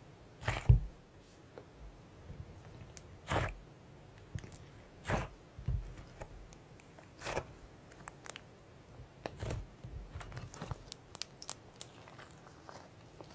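Slime being squeezed and pressed by hand, in separate sticky strokes about one to two seconds apart, then a run of quicker small clicks and pops near the end.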